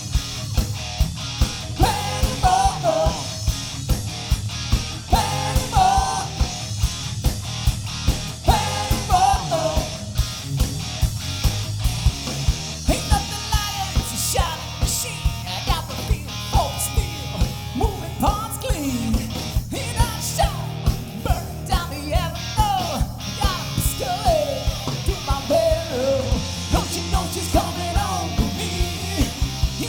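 Live rock band playing a hard-rock cover with electric guitars, bass and drum kit, driven by a steady, fast beat.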